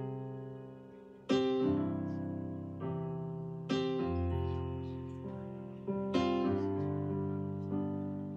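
Slow piano music: three sustained chords, one struck about every two and a half seconds and left to fade, with a low bass note under the middle one.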